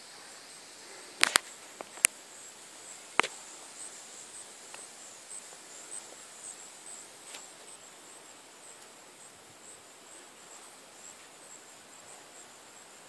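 Quiet outdoor ambience with faint, steady high-pitched insect chirping, broken by a few sharp clicks about one, two and three seconds in.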